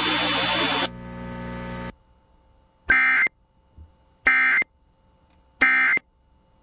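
Emergency Alert System End-of-Message data tones: three identical short, shrill bursts of warbling digital code, each under half a second and about 1.3 seconds apart. They follow a couple of seconds of radio static trailing off after the spoken warning.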